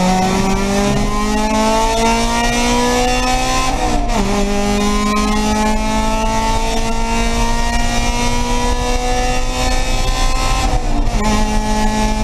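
Race car engine heard from inside the caged cockpit under full throttle, its revs climbing steadily. It shifts up with a sudden drop in pitch about four seconds in, climbs again more slowly, and shifts up once more near the end, over constant wind and road noise.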